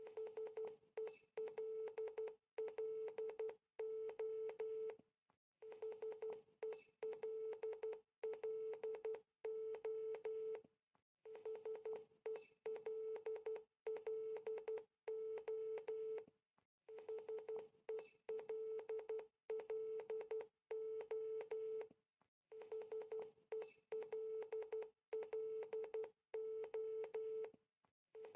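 Morse code sent as a steady mid-pitched beep keyed on and off in short and long pulses, spelling HELLO (.... . .-.. .-.. ---). The word repeats about five times, with a longer pause between repeats.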